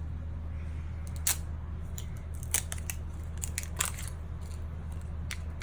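Plastic toy packaging being opened by hand: a scattering of sharp, irregular crinkles and snips.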